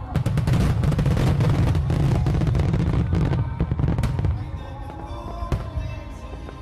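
Fireworks display: a dense run of bangs and crackling from shells and ground-fired mines going off together, thinning out after about four seconds into scattered pops. Background music plays underneath.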